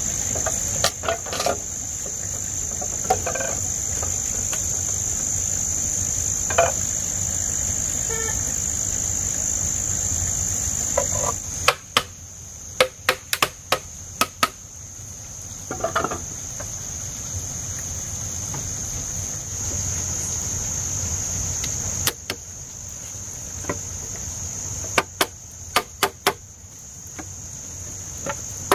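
Crickets trilling steadily in one constant high note. Over it come hollow knocks of bamboo poles, then clusters of sharp strikes about halfway through and again near the end: a hand-held block hammering a bamboo crosspiece into its uprights.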